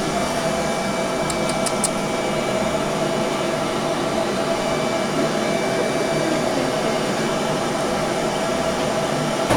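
Steady whirring machine hum, with a quick run of four light clicks about a second and a half in.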